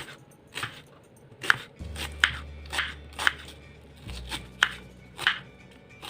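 Knife chopping on a cutting board: about seven sharp, separate strokes at uneven intervals.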